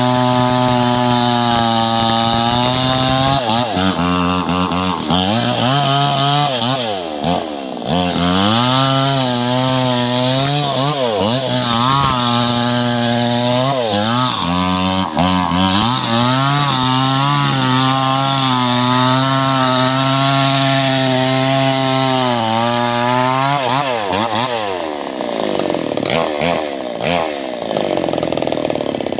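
Two-stroke chainsaw engine running at high revs while cutting teak, its pitch repeatedly sagging under load and climbing back as the chain bites and frees. Near the end the pitch glides down and the engine eases off.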